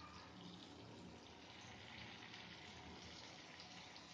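Faint, steady sizzle with fine crackles: pieces of yogurt-marinated chicken frying in melted ghee and butter in a non-stick pan over a low flame.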